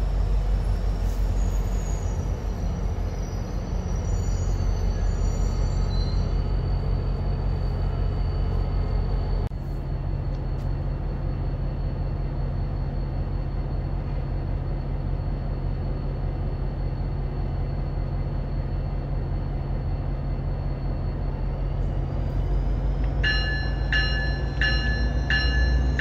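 Commuter train approaching the station with a steady low rumble. Near the end its bell starts ringing in evenly spaced strikes, about two a second.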